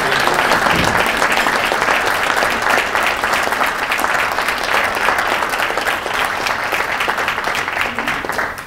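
Audience applauding: dense clapping that fades away near the end.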